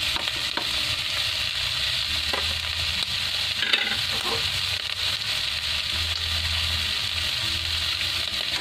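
Pork belly pieces frying in hot oil in a wok with chopped onion, garlic and bell pepper, a steady sizzle throughout. A single brief knock sounds a little under halfway through.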